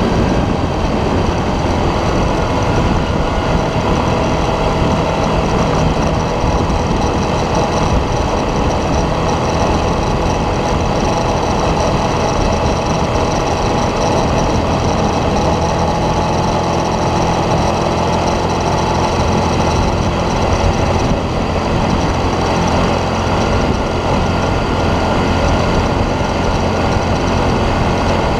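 An ATV's engine running steadily under way.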